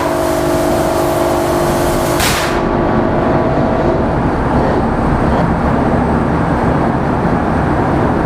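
Eight-cylinder MaK marine diesel main engine being started on compressed air: two sharp hisses of air, one at the start and one about two seconds in, then the engine catches and runs with a dense, steady machinery rumble.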